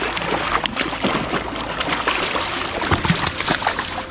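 A spawned-out steelhead splashing and kicking at the surface as it is released by hand beside a raft, a run of irregular water splashes.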